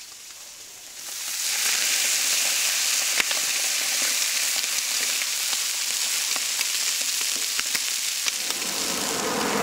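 Slices of beef tongue sizzling on a hot grill plate over embers under a foil-wrapped press, a dense hiss with scattered sharp pops that swells up about a second in. Near the end a low rumble rises beneath it.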